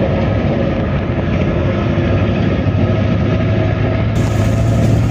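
A motor vehicle's engine running steadily, with a strong constant low hum.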